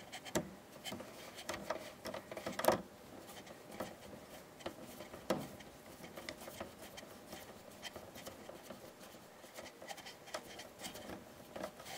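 Small screwdriver turning a screw into a cassette deck's metal motor mount: faint, irregular scraping and ticking of the tool in the screw head, with a couple of sharper clicks, one near three seconds in and one around five seconds.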